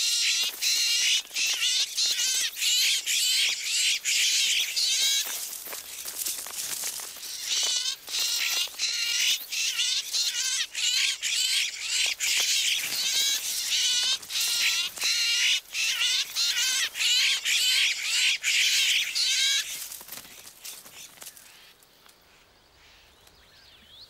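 Florida scrub-jays giving harsh, rapidly repeated scolding calls as they attack and drive off an intruding jay from a neighbouring territory, with sharp clicks of the scuffle mixed in. The calling comes in two long bouts, broken by a short lull about five seconds in, and dies away a few seconds before the end.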